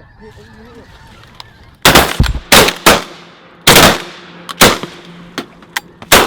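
A volley of about seven shotgun shots from several hunters firing at waterfowl, fired in quick succession over about four seconds, each crack followed by a short echo. Faint honking comes in the first second, before the shooting starts.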